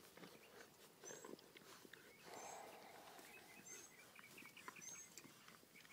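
Faint eating sounds of bullmastiff puppies, about five weeks old, feeding from a steel bowl: soft lapping and chewing, with a run of small quick clicks through the middle.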